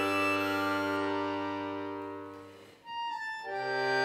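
Chromatic button accordion playing held chords that die away about two and a half seconds in, leaving a lone high note, before a new full chord sounds about three and a half seconds in.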